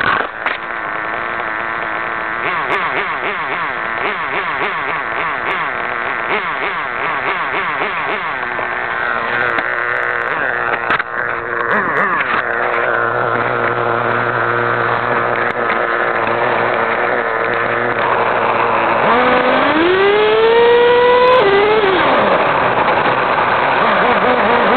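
Kyosho RC model car's motor running at a steady pitch, with a few knocks as the car is handled. About twenty seconds in it revs up in a rising whine as the car accelerates away.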